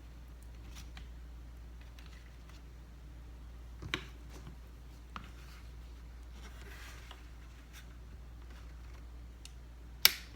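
Scattered light clicks and taps from handling small parts and tools on a workbench, with a sharp click about four seconds in and a louder one near the end, over a steady low hum.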